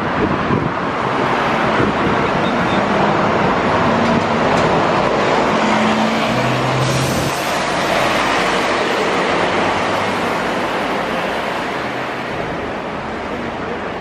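Road traffic passing close: a car drives by, then a double-decker bus passes with a low engine hum and steady tyre noise, loudest in the middle and easing off toward the end.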